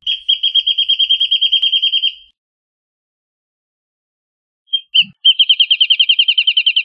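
Wrentit singing twice. Each song is one or two short opening notes followed by a rapid, even run of high repeated notes lasting about two seconds. The second song starts about five seconds in.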